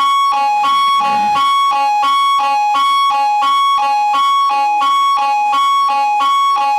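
Electronic two-tone alarm: a high note and a lower note alternating evenly, about three changes a second, in the manner of a hi-lo siren.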